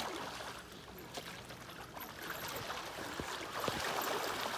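Shallow river water splashing and sloshing as two people wade through it in chest waders. The splashing grows louder in the second half.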